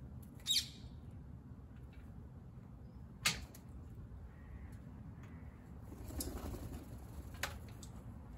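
A grey squirrel scrabbling onto the rim of a copper jug from a planter: a sharp click of claws on the metal about three seconds in, a scraping rustle a little later and another click near the end, over a steady low background rumble. A short high squeak about half a second in.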